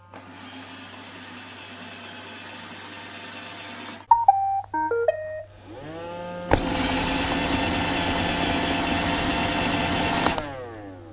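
iRobot Roomba robot vacuum: a steady motor hum, then a short melody of electronic beeps about four seconds in. Its vacuum and brush motors then spin up with rising pitch, run loudly and steadily for about four seconds, and wind down with falling pitch near the end.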